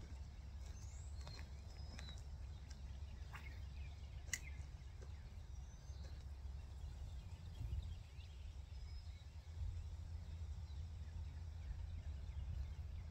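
Quiet outdoor ambience: a steady low rumble with scattered faint, short bird chirps and a few sharp clicks.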